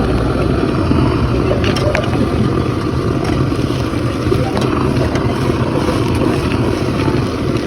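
A steady, loud low rumble with a few sharp clicks.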